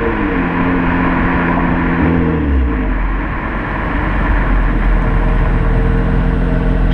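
2005 Acura TL's 3.2-litre V6 running through a modified exhaust with the mid muffler, resonator and third catalytic converter removed. The engine note falls in pitch in two steps, then holds steady with a deep low drone.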